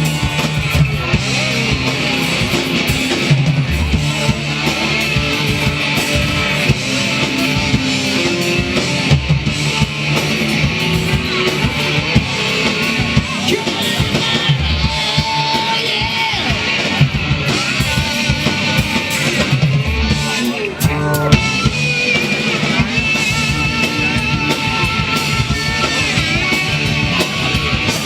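Rock band playing: electric guitar over a drum kit, with a long held, wavering lead line in the second half.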